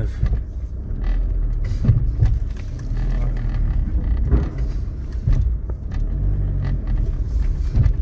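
A 1999 Audi A3 running, heard from inside the cabin, with several irregular clicks or knocks, 'tak tak tak', as the brake pedal is pressed. The noise has persisted even though the brake pads have been replaced and the brakes bled.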